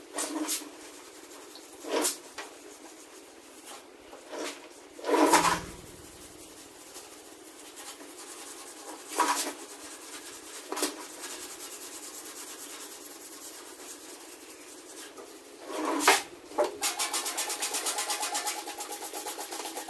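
Scattered knocks and clatter of handling, the loudest about five seconds in. About three seconds before the end comes rapid back-and-forth scrubbing, several strokes a second, on the toolbox's metal as soot is cleaned off.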